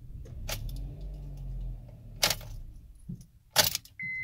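Car ignition keys jangling on their ring, with a few sharp clicks, the loudest about three and a half seconds in, as the key is handled at the ignition to start the car. Right at the end a steady, high electronic beep from the car begins.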